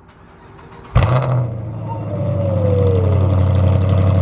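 Car engine cold-started: a short quiet crank, then the engine catches with a sudden loud burst about a second in and settles into a steady idle. A brief falling whine sounds between about two and three seconds in.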